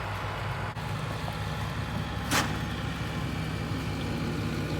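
A vehicle engine running steadily, a low hum, with one brief burst of noise about halfway through.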